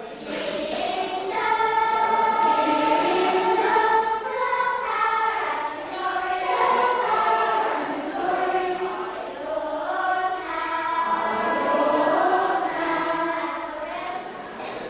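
A group of voices singing a hymn together, a single melody line with long held notes, starting about half a second in.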